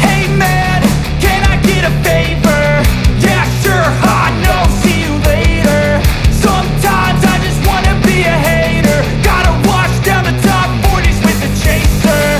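Loud rock background music with a steady driving beat and a melodic lead line.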